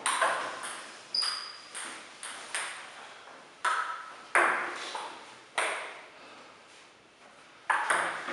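Table tennis ball clicking off paddles and the table in a string of sharp hits, each trailing off in the hall's echo. After a lull of about two seconds, quick hits start again near the end.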